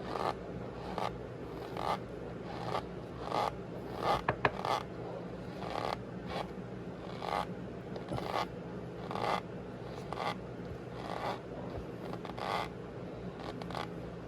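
Cornstarch powder squeezed and pressed, giving squeaky, crunchy strokes about once a second, with a brief cluster of sharp crackles about four seconds in.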